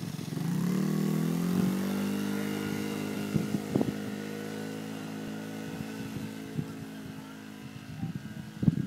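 Polaris Outlaw 50 youth ATV's small engine pulling away, its pitch rising in the first second and then holding steady. It grows steadily fainter as the quad rides off, with a few light knocks along the way.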